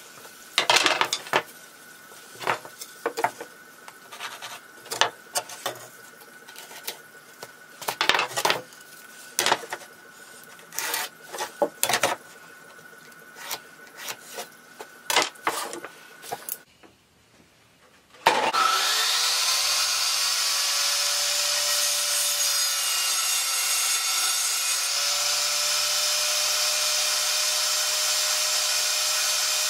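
Knocks and clatter of plywood scraps being handled and laid on a workbench. Then, after a short gap, a portable table saw starts abruptly, winds up to speed and runs steadily as half-inch plywood is fed through it.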